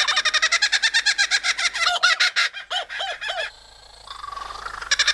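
Superb lyrebird singing a rapid chattering run of repeated notes, about ten a second, with a few lower notes a little under three seconds in. It breaks off briefly at about three and a half seconds and starts again just before the end.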